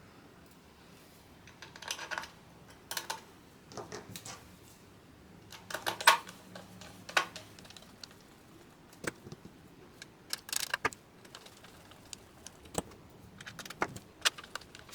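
Irregular clicks and light clatter of small keyboard parts being handled and pressed into place, in short clusters with gaps between.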